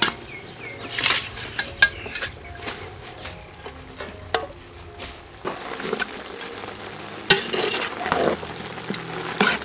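Metal ladle stirring shredded vegetables in a metal cooking pot: wet rustling of the greens, with ladle scrapes and several sharp clinks of metal on metal against the pot.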